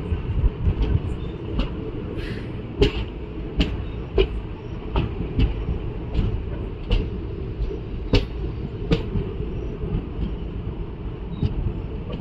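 Express passenger train running on the track, heard from on board: a steady low rumble with sharp wheel clicks over rail joints at uneven spacing, about one or two a second.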